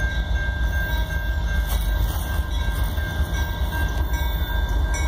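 Approaching CN diesel freight locomotive, a steady low rumble of its engine and the train, with a thin steady high tone running under it.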